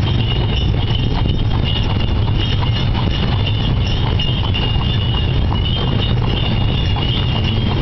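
Draught horse's hooves clip-clopping on asphalt as it pulls a carriage, over the steady rumble of the carriage rolling along the road. A steady high ringing runs above it.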